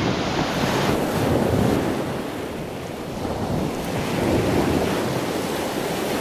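Strong wind buffeting the microphone over the steady wash of rough surf.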